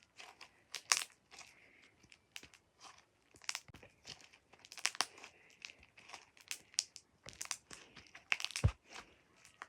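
Slime being squeezed and pressed by hand, giving irregular sharp pops and crackles as trapped air bursts, several a second.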